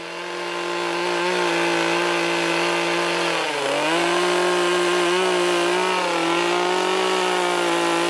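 Small two-stroke Echo carving chainsaw running at high revs while cutting into a redwood log. It throttles up in the first second, then holds a steady engine note that dips briefly about halfway through.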